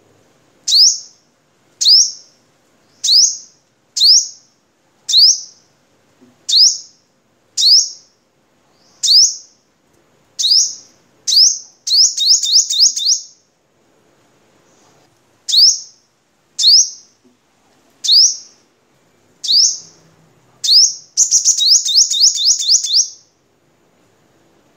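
Caged male sunbird singing: short, high, sharp chirps repeated about once a second, twice breaking into a fast run of several notes in a row.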